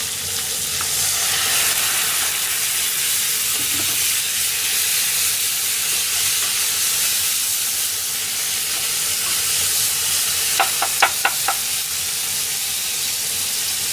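A frying pan of chicken wings and vegetables sizzling steadily, with a splash of white wine just poured in, as the food is stirred with a wooden spatula. Near the end there is a quick run of five sharp taps, the spatula knocking against the pan.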